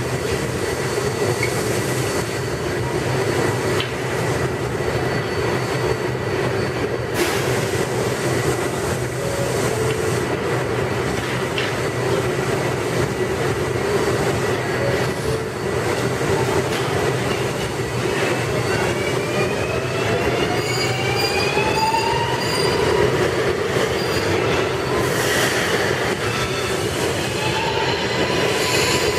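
R142A New York City Subway train running through the station, with a steady rumble of wheels on rail and high wheel squeal; about two-thirds of the way in a rising whine sets in.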